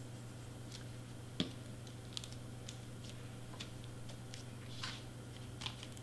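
Scattered small clicks, taps and a short rustle of cardstock pieces being handled and pressed down on a cutting mat, with one sharper knock about a second and a half in, over a low steady hum.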